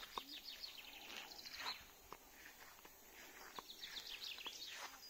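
Small songbirds singing faintly, in repeated runs of quick, falling chirps.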